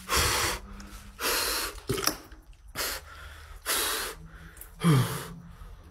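A man breathing hard and fast close to the microphone, about one loud breath a second, with a short falling vocal sound near the end.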